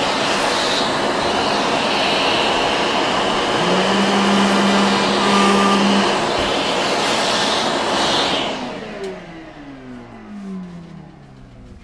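Router and shop vacuum running together while the router cuts a fin-box slot in a surfboard. About eight and a half seconds in, the circuit breaker trips: both lose power and wind down, their pitch falling as they coast to a stop.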